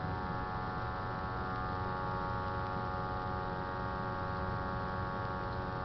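Steady electrical hum from the Intoxilyzer 8000 breath-alcohol analyser while it runs its air blank.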